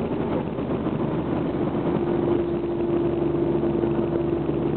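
Steady engine and road noise inside a moving vehicle, with a low, steady hum that grows stronger about halfway through.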